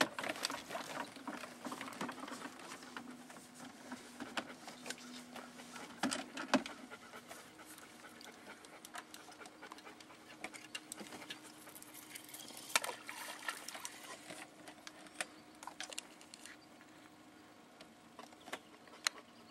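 Electric trolling motor humming faintly and steadily on low, with scattered clicks and rustles of a fishing rod and reel being handled and a couple of sharper knocks about six seconds in.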